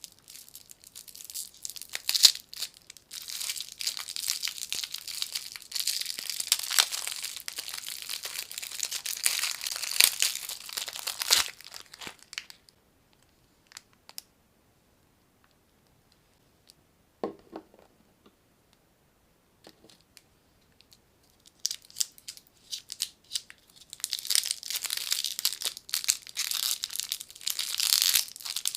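Plastic lollipop wrappers crinkling and tearing as they are unwrapped by hand. There are two long stretches of crackling, broken by a quiet pause of about nine seconds that holds only a few faint clicks.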